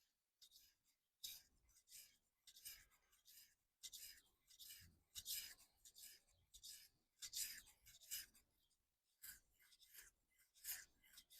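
Kitchen knife blade scraping across a sharpening stone in faint, repeated strokes, roughly one to two a second, beginning about a second in. Each pressured pull down the stone gives the scrape, with the blade held at a steady angle and worked section by section.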